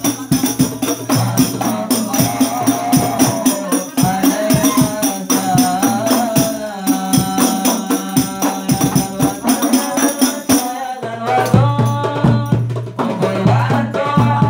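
Men singing an Islamic devotional song (sholawat) into microphones over a steady hand-drum rhythm, the voices amplified through a sound system.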